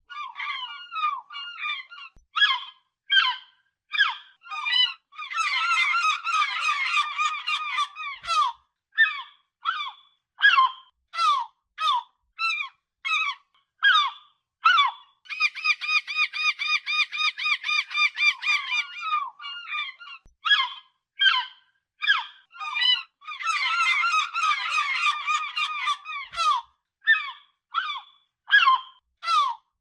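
Gulls calling: a steady run of sharp, high-pitched squawks, with three stretches of rapid, overlapping calling, as in a gull's long call or a group calling together.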